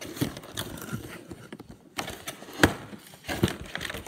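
Irregular knocks, clicks and rustles of a toy air hockey game's box being handled and opened, with a sharper knock about two and a half seconds in.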